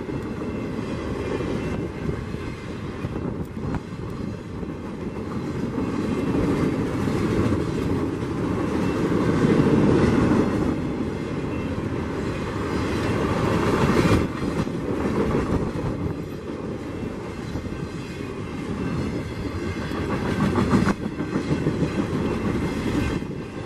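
Freight train flatcars rolling past: a steady rumble of steel wheels on the rails, with a rapid clickety-clack of wheels over the rail joints, swelling and easing in loudness.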